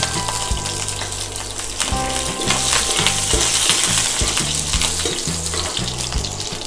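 Tempering sizzling in hot oil in a non-stick frying pan: curry leaves, urad dal, chana dal and mustard seeds frying as a spatula stirs them around the pan. Low background music with stepping bass notes plays underneath.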